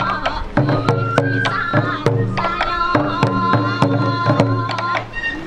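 Sansa odori festival music: taiko drums struck in a quick, steady rhythm under a held, high bamboo-flute melody.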